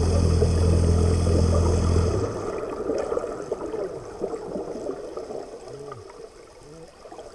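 A boat's engine heard underwater: a loud, steady low hum that cuts off suddenly about two seconds in, leaving faint gurgling water.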